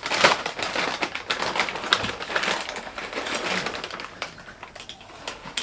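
Plastic snack packets crinkling and crackling fast and irregularly as hands hurry to get the contents out.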